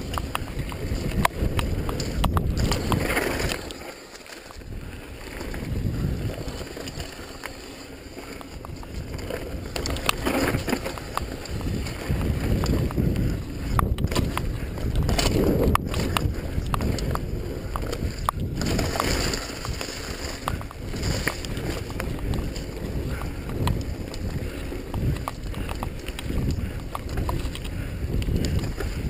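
Wind buffeting the camera microphone as a mountain bike rides fast down a dirt trail, with tyre roar on dirt and frequent clicks and rattles from the bike over bumps. It eases off for a few seconds about four seconds in.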